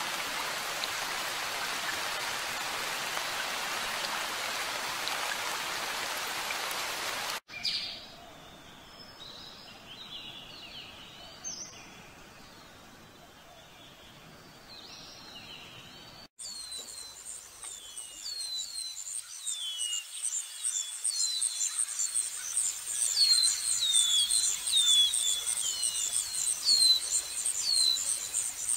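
Nature ambience in three sections that cut abruptly: a steady rain-like hiss for about seven seconds, then faint scattered bird chirps, then from about sixteen seconds a high, fast insect trill with birds' repeated falling chirps, growing louder.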